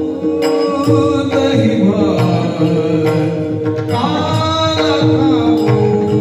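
Warkari bhajan: a male lead singer sings a gliding devotional melody over a steady drone, with taal (small brass hand cymbals) clashing in a regular rhythm and mridang drum strokes.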